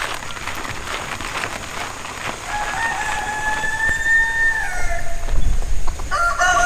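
Rooster crowing: one long crow starting about two and a half seconds in, held for a couple of seconds and dropping in pitch at its end, then a second crow beginning near the end. Light clicking and rustling comes before the first crow.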